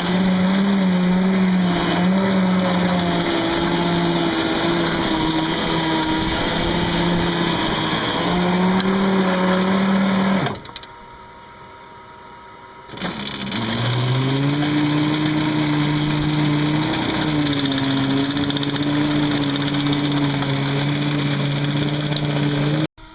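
Bulldozer's diesel engine running hard with a steady hum whose pitch shifts as it works. About ten and a half seconds in it drops away for a couple of seconds, then comes back lower-pitched and cuts off suddenly near the end.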